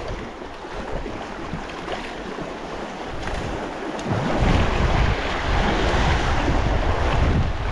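Wind buffeting the microphone over the wash of sea waves on the shore, the wind gusting harder about halfway through.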